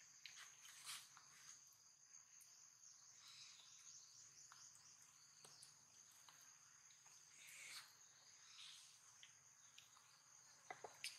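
Faint, steady high-pitched chorus of insects, with scattered faint clicks and a few sharper ticks near the end.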